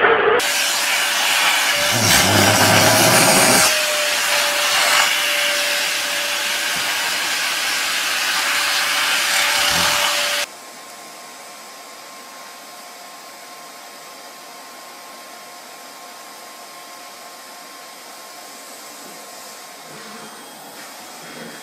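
Vacuum cleaner running with a loud, steady rushing hum. About halfway through it drops suddenly to a quieter, steady motor hum.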